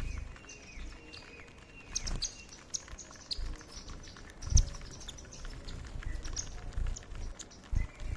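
A flock of Indian silverbills (white-throated munias) giving many short, high chirping calls in quick succession. Several low thumps sound among them, the loudest about four and a half seconds in.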